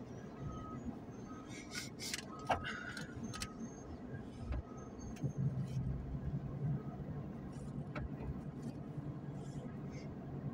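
Heavy diesel engine idling steadily with a low hum, with scattered clanks and knocks around it. Faint short beeps repeat about once a second in the first half.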